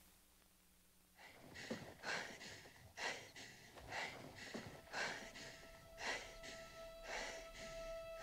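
A person breathing hard: heavy, rhythmic breaths in and out, about one a second, starting about a second in. A faint held musical tone comes in underneath about halfway through.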